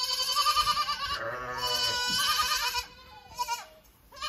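Goats bleating, several quavering calls overlapping, with a deeper call about a second in and a short call near the end.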